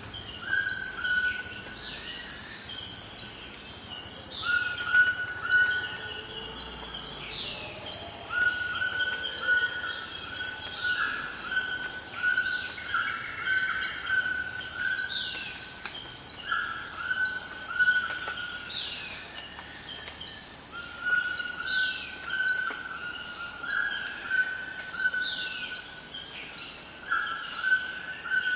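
Toucans calling in rainforest ambience: repeated short downward-sliding calls and runs of flat, even notes, over a steady high-pitched insect drone.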